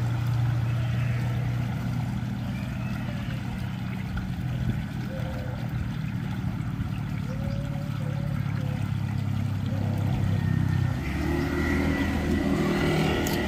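A small engine runs steadily with a low hum, and its note changes about eleven seconds in.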